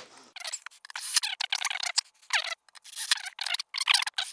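Quick, irregular scraping and clicking of a cordless drill/driver's bit being worked against the screws on a subwoofer's woofer rim; the drill motor itself is not running.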